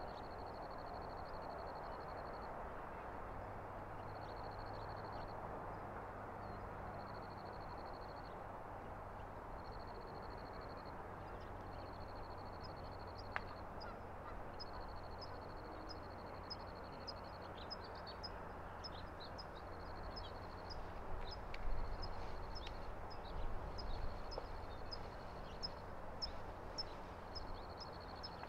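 Open grassland ambience: a high, buzzy trill repeats in runs of a second or two, joined about halfway by a quick series of short, high, falling chirps. Both sit over a steady background hiss.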